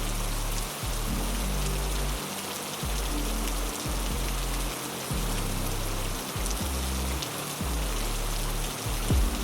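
Heavy rain, a steady hiss, with soft music beneath it: low held notes that change every second or two. A couple of sharp low knocks come near the end.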